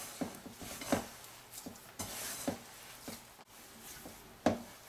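Hands kneading soft puri dough in a ceramic bowl: soft, irregular knocks and rubbing as the dough is pressed and turned against the bowl.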